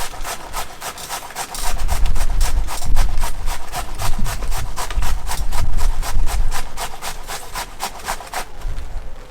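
Cucumber being grated on a metal box grater in rapid, even scraping strokes that stop near the end. A low rumble joins about a second and a half in.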